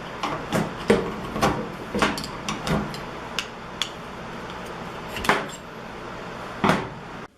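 Irregular knocks and clicks of hard objects being handled and set down, over a steady background hum.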